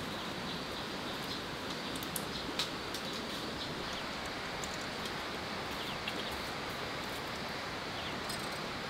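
Steady outdoor forest background noise with a few faint bird chirps, and occasional light clicks and taps as bamboo and wire are handled, about two seconds in and again near six and eight seconds.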